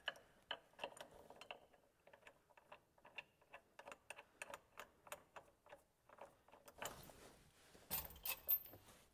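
Steel limiting chain and its clevis clinking and rattling as the chain is handled, light irregular clicks of metal on metal while the clevis is re-pinned with half a twist in the chain.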